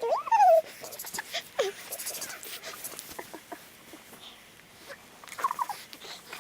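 A baby cooing and squealing in short sounds that slide up and down in pitch. They are loudest in the first second and come again near the end, with small clicks and rustles in between.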